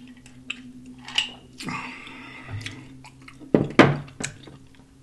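Drinking from a glass of iced drink close to the microphone: sips and swallows with scattered clicks of ice against the glass. The glass is set down with a couple of sharp knocks, the loudest sounds, about three and a half seconds in.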